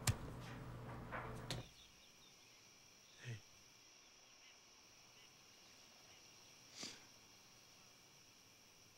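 Faint, steady chirring of crickets, with two soft whooshes about three and seven seconds in, the first falling in pitch. It is preceded by about a second and a half of a sponge rubbing over a small window, with a few clicks, before the sound drops away suddenly.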